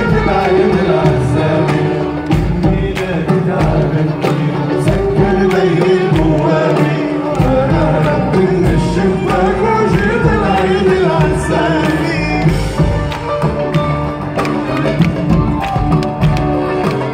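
Live Arabic pop music heard through a concert PA: a male vocalist singing with a band, with steady percussion underneath.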